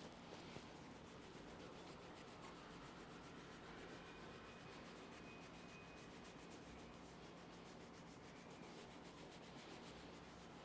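Faint, fast, even rubbing on hair and skin during a head massage.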